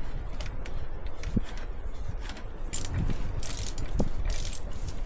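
Metal clinks, rattles and scrapes of hand tools and loose parts being handled, a string of short sharp clicks with a few longer rustling scrapes from about halfway in.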